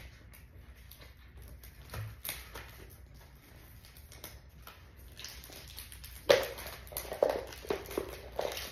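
Rustling of a plastic bag and clicking of hard plastic toy pieces being handled on a table, with a few light taps early on. A little past the middle comes a sharp knock, the loudest sound, followed by a run of clicks and rustles.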